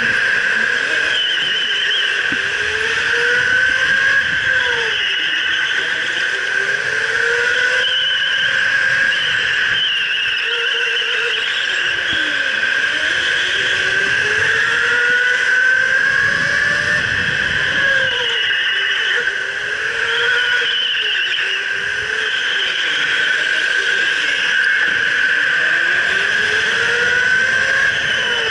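Electric go-kart at speed, heard from the driver's seat: a steady high motor whine with a lower whine that rises and falls in pitch every few seconds as the kart speeds up out of the turns and slows into them.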